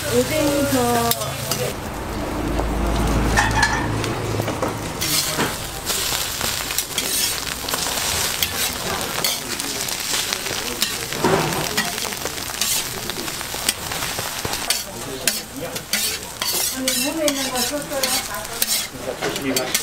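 Food sizzling steadily as it fries, with frequent sharp clicks and scrapes of a cooking utensil working it.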